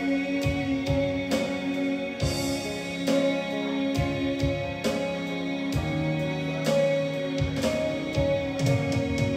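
Instrumental music with sustained chords and a slow, steady beat.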